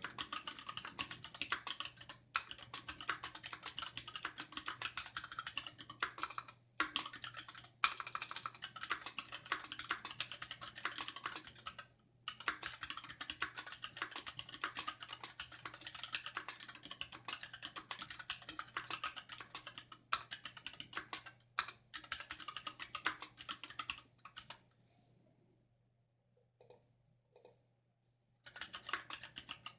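Fast, continuous typing on a Varmilo VA68M aluminium-case mechanical keyboard with Gateron Red linear switches and thick dye-sub PBT keycaps, a rapid stream of keystroke clacks. It breaks off in a few short pauses, then a longer pause near the end with only a couple of single keystrokes before fast typing resumes. A faint steady hum lies underneath.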